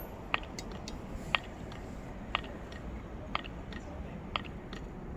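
Sharp, evenly spaced ticks about once a second, with fainter clicks between them, over a low steady background hum.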